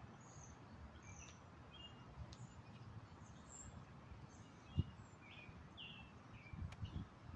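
Small birds chirping repeatedly over a faint low rumble, with one dull thump about five seconds in and a few softer thuds near the end.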